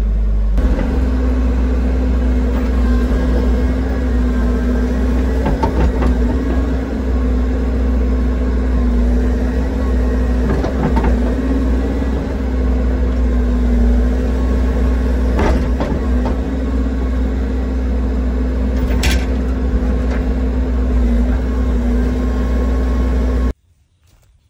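Mini excavator's diesel engine running steadily at working revs, heard from inside the cab, its pitch wavering slightly as it digs, with a few sharp knocks. The engine sound cuts off abruptly about a second before the end, leaving a quiet background.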